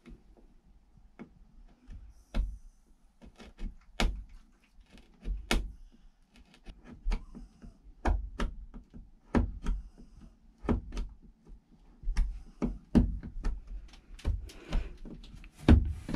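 Irregular sharp clicks and taps, a couple a second, from a hand tool working at the edge of a hole in a plastic wall panel; the loudest knock comes near the end.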